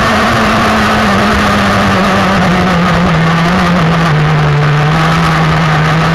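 K&B 7.5cc two-stroke glow engine of a Prater Lap Cat model racing catamaran running flat out, its pitch sagging slightly over the first few seconds and then holding steady, over a broad hiss.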